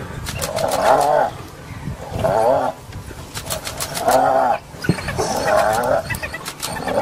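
Spotted hyena being bitten by African wild dogs, giving four loud yelping calls about a second apart, the last one drawn out longer.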